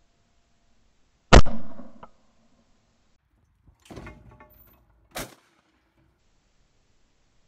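A single loud shot from a 12-bore over-and-under shotgun about a second and a half in, dying away over most of a second. Later come a brief softer jumble of sound around four seconds and a short, quieter sharp crack just after five seconds.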